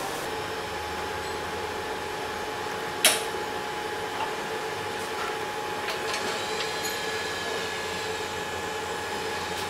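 Steady machine hum and hiss at a band saw blade butt-welding machine, with one sharp metallic click about three seconds in as the blade ends are clamped.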